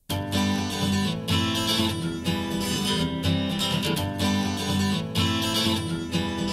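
Acoustic guitar strumming an instrumental intro, starting abruptly out of silence.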